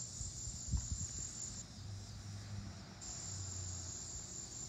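Steady high-pitched chorus of crickets, with a faint low rumble of a car driving away down the street.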